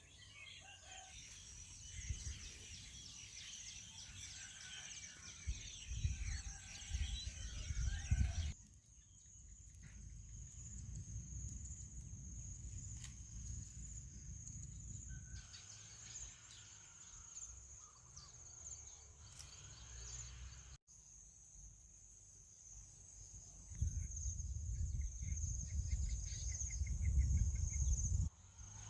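Rural outdoor sounds: chickens clucking and a rooster crowing, with bird chirps and a steady high insect drone. Wind rumbles on the microphone in stretches, and the sound changes abruptly several times.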